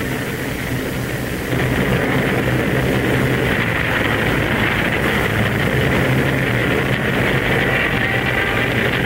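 Steady drone of a Ju 87 Stuka dive bomber's engine in flight, stepping up in loudness about a second and a half in.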